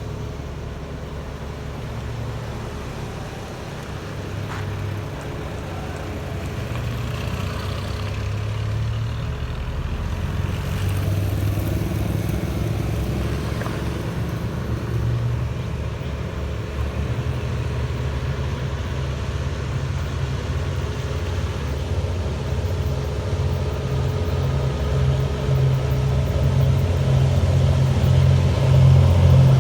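Diesel train engine running with a low pulsing rumble that grows steadily louder, as of a train drawing closer.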